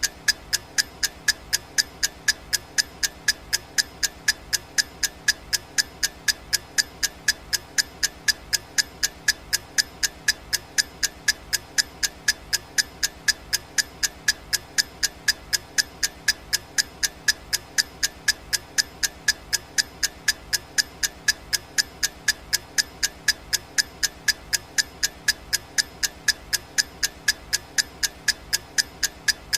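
Clock ticking sound effect: sharp, even ticks several times a second, repeating without a break.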